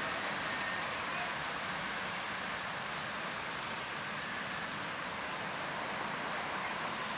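Loaded grain train with a diesel locomotive rolling away in the distance: a steady wash of rail and engine noise that slowly fades.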